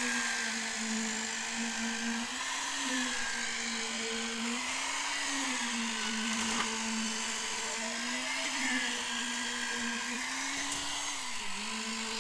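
Handheld electric concrete needle vibrator running with its poker in wet concrete: a steady motor hum whose pitch wavers slightly as the needle is worked through the mix, dipping a little near the end.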